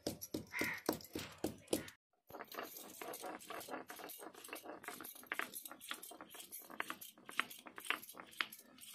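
Stone grinding block worked on a flat stone slab (sil-batta), crushing mustard seed, cumin, chillies, garlic and turmeric into masala: rapid repeated knocks and grating of stone on stone. There is a brief silent gap about two seconds in.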